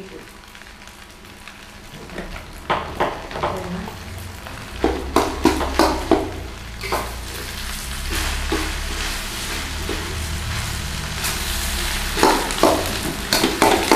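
Egg fried rice (nasi goreng) sizzling in a metal wok on a portable gas stove, with a metal spoon scraping and clinking against the pan as it is stirred. The sizzling grows louder after about two seconds.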